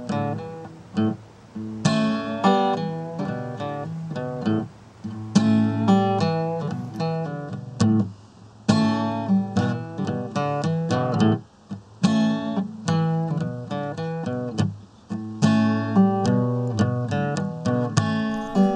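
Acoustic guitar being picked and strummed in a bluesy pattern, with short breaks between phrases.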